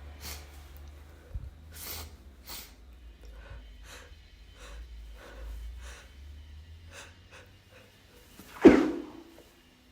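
A person's sneeze build-up: a run of short catching breaths, one or two a second, then a single stifled sneeze near the end.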